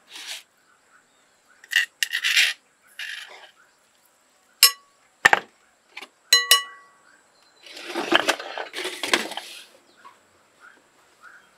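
A metal spoon scraping pounded chilli and dried-shrimp paste out of a stone mortar. A few sharp clinks with a short ring follow, then a longer stretch of scraping near the end.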